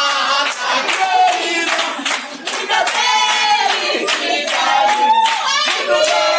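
A small group of people clapping along while singing a cheer together.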